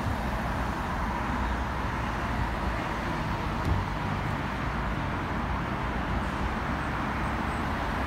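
Steady road traffic noise: vehicle engines and tyres on the road, a low rumble under an even hiss.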